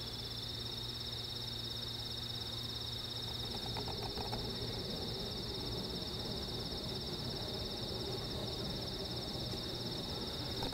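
Steady high-pitched chorus of night-singing insects: a continuous, rapidly pulsing trill.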